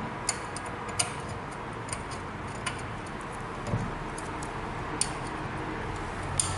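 Rotary evaporator parts being handled and fitted together by hand: scattered small, irregular clicks and taps, with one duller knock a little past halfway, over a steady hiss.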